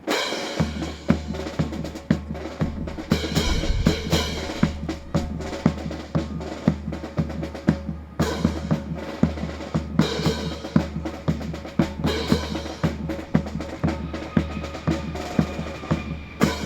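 Drum-driven music with a pulsing bass and a steady run of sharp drum strikes, starting abruptly and breaking off briefly a few times.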